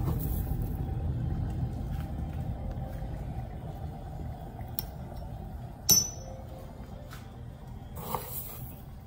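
Metal spoon scooping instant coffee granules, with one sharp clink against a small ceramic cup about six seconds in and a lighter knock near the end. Under it a low rumble from an electric kettle fades away.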